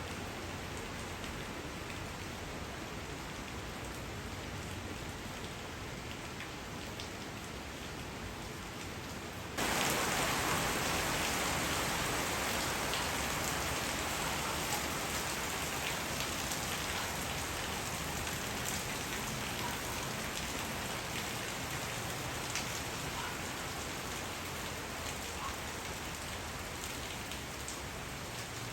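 Steady rain falling. About ten seconds in it abruptly gets louder, then slowly eases off.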